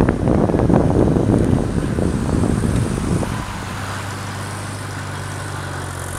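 Vehicle engine running at low speed with a loud rough rumble for the first three seconds, which drops away to a steady low engine hum for the rest.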